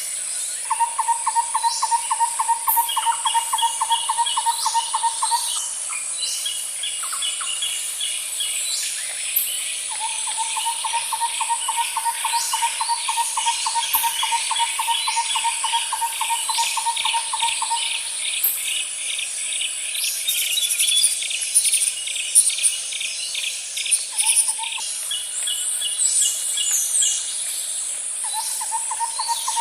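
Outdoor nature ambience of insects and birds. A steady, high-pitched insect drone runs under long, even trills that repeat every few seconds, with scattered chirps.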